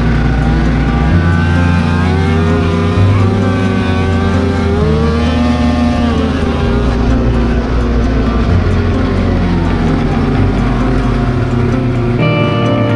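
Two-stroke snowmobile engine running under throttle at speed, its pitch rising and falling.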